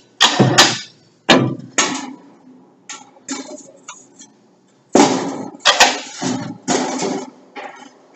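Repeated sharp metallic clanks and bangs at uneven intervals, each ringing out briefly, with a lull of about a second before a renewed cluster about five seconds in.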